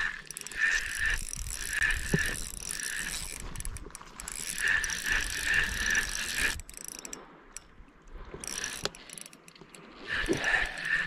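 Spinning fishing reel being cranked to retrieve line: a gear whir and ratchet-like ticking that pulses with each turn of the handle, about twice a second. It stops for a few seconds past the middle and starts again about ten seconds in.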